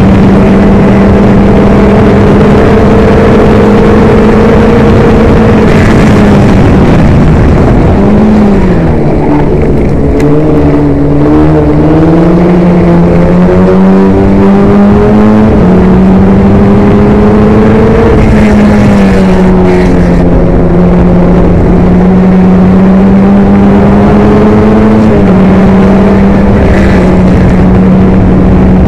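Formula Ford's Ford Kent crossflow four-cylinder engine at racing revs, loud from the cockpit. The note holds high, drops about six to nine seconds in as the revs come down, then builds back up and holds high again.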